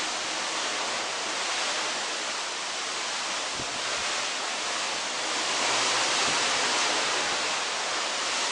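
Steady rush of sea water streaming along the hull of a moving cruise ship, mixed with wind, with a slight swell in level around the middle.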